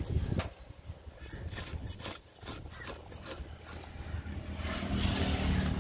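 A knife scraping and cutting at a fish on a wooden board: a run of short, irregular scrapes, over a low background hum that grows louder near the end.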